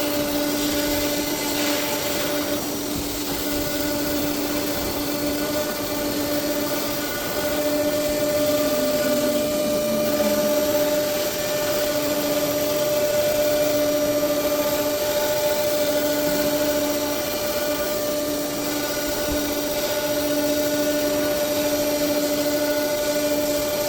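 Spindle of a 1325 ATC CNC router running with a steady whine over a constant rushing noise; the pitch dips briefly a little under halfway through.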